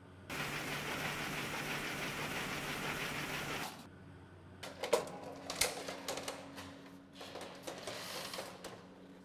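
Old lift with a collapsible metal scissor gate: a steady mechanical running noise with a low hum stops after about three and a half seconds, then the gate is hauled open with a string of irregular metal clanks and rattles.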